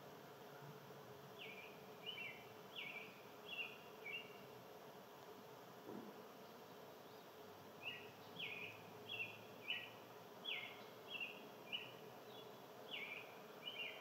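Short high chirping calls from an unseen small animal, repeated about one to two a second: a run of about five, a pause, then a longer run of about ten. Underneath is a faint steady hum.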